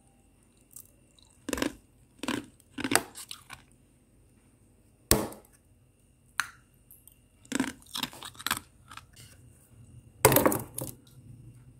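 Thick, soft freezer frost being scraped and crushed by hand, in irregular crunches with pauses between, one sharp crack about halfway through and the loudest crunch near the end.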